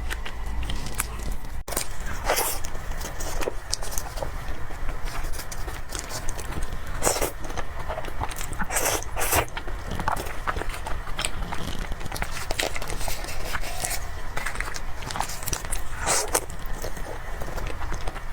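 Close-miked eating: someone chewing soft cake, with wet mouth sounds, frequent small clicks and a handful of short, louder smacks.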